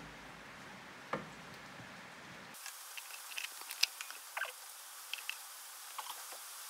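Small clicks, crunching taps and scrapes of a ribbed funnel hose being worked into a tractor's hydraulic filler hole by a gloved hand, after a single knock about a second in.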